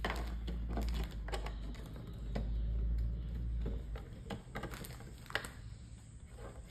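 Small plastic Lego pieces clicking and clattering at irregular intervals as they are handled and pressed together, over a low rumble that fades about four seconds in.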